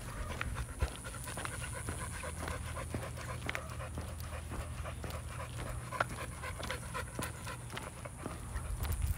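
A dog panting steadily with its mouth open while walking on a leash, with light footsteps on pavement.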